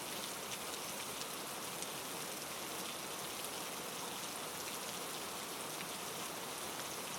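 Steady rain falling, an even hiss of drops with faint scattered patters on a surface.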